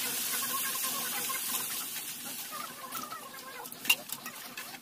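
Hens clucking, while water is poured from a steel mug into a karahi of frying chicken curry. A steel mug is set down with a sharp clink about four seconds in.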